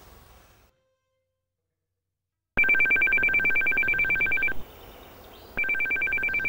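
After a faint outdoor hush cuts to dead silence, a telephone starts ringing with a fast-trilling two-tone electronic ring. It rings for about two seconds, pauses for about a second, and rings again.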